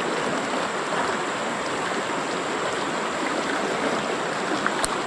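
Shallow river rapids rushing over rocks: a steady hiss of fast water, with one sharp click near the end.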